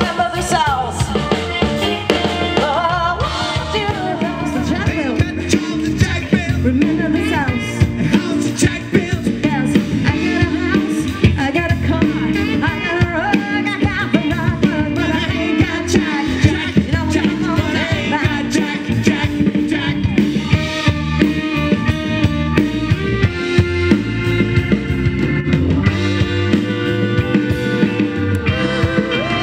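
Live soul band playing through a PA: drum kit beat, bass and singing.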